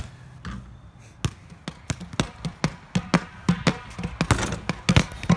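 Basketball bouncing on hard pavement: a rapid run of sharp bounces, about four a second.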